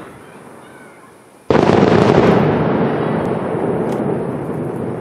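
An aerial firework shell bursts with a sudden loud boom about a second and a half in, followed by a long rumbling echo that slowly fades.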